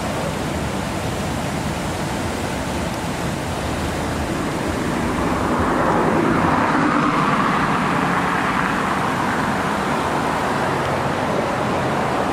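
Steady road traffic noise, an even rush with no distinct engine note, that grows louder about halfway through.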